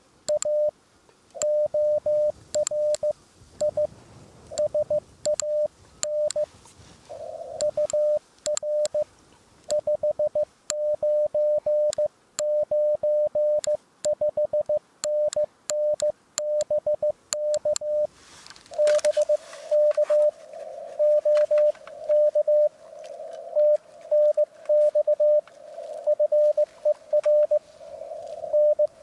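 Morse code (CW) on 7 MHz from an Icom IC-705 transceiver: a single tone of about 600 Hz keyed on and off in dots and dashes. Sharp clicks are scattered through it, and there is a brief rush of noise a little past the middle.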